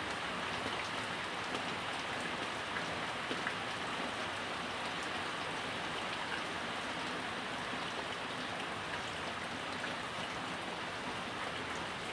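Steady rain falling, an even hiss, with a few faint clicks.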